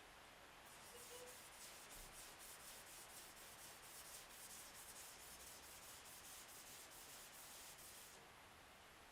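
Hand sanding block rubbed back and forth over a primed Porsche 911 body panel in quick, even strokes, about four a second, stopping about eight seconds in. The sound is faint.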